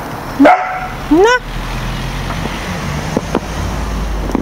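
Pembroke Welsh Corgi puppy giving two short, sharp barks about a second into the clip, less than a second apart, followed by a low steady rumble.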